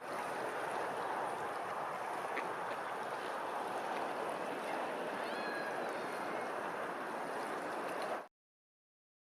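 Steady rush of running, splashing water, with a few faint bird chirps about five seconds in. The sound cuts off abruptly near the end.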